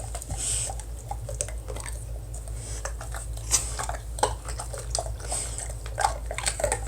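A dog chewing and crunching a frozen ice-cube treat, with irregular crunches and clicks of its teeth, over a steady low hum.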